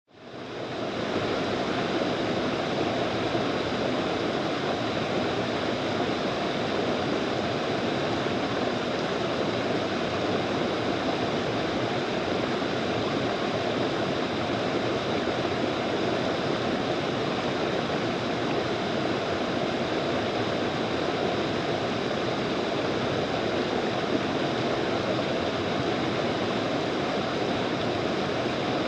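Fast-flowing mountain stream rushing steadily, fading in over about the first second.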